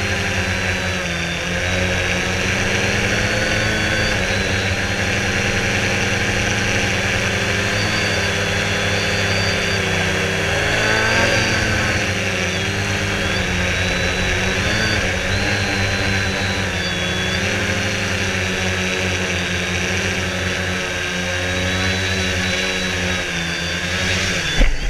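Quanum Venture quadcopter's brushless motors and propellers whining steadily as heard from the GoPro riding on it, the pitch drifting up and down as the throttle changes. A sharp thump near the end as it touches down.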